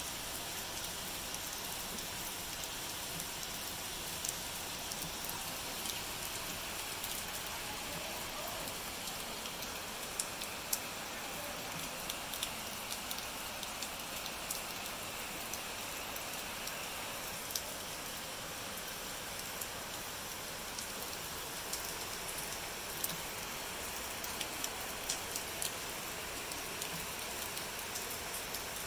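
Steady rain falling: a constant hiss with scattered sharper drips and ticks.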